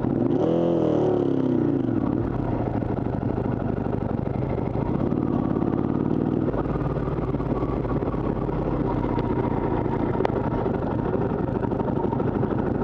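Sport motorcycle's engine running at low road speed, heard close up from the bike: its pitch swings down and back up in the first two seconds and again briefly near the middle, then it settles into steady low running.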